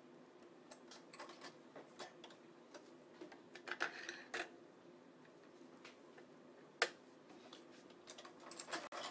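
Scattered clicks and small knocks from a badminton stringing machine's tensioner gripper and string clamps as the string is fed in, pulled and clamped. A short stretch of string scraping comes about four seconds in, and one sharp click comes near seven seconds.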